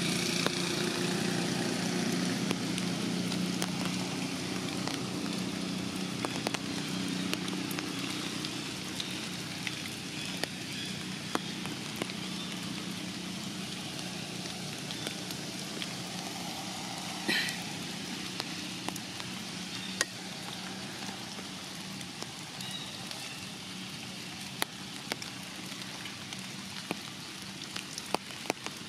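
Light rain falling through forest foliage: a steady hiss scattered with the small ticks of drops hitting leaves. A distant engine's low drone fades out over the first several seconds, and a short high call sounds once about halfway through.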